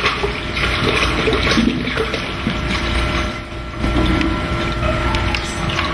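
Water pouring from an open plastic gallon jug into a plastic measuring pitcher.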